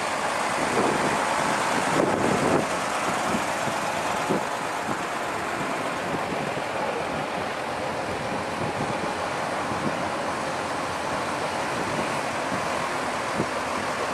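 Diesel fire engines driving slowly past one after another, engines running, with wind noise on the microphone. The sound is a little louder in the first two seconds or so, as a truck passes close.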